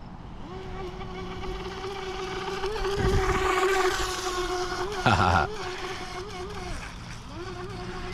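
Whine of a DEERC RC speedboat's KV2850 brushless motor, rising and falling in pitch as the throttle is worked, loudest a few seconds in. A short loud burst of noise cuts across it about five seconds in.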